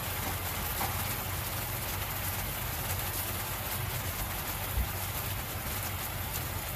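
Pork loin steaks simmering in sauce in a frying pan, bubbling and crackling steadily. A steady low hum runs underneath.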